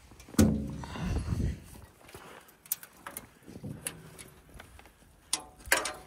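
Sheet-steel blade-wheel cover of a homemade bandsaw mill being opened: a loud metal clang that rings for about a second, then a few light knocks, and another ringing clang near the end.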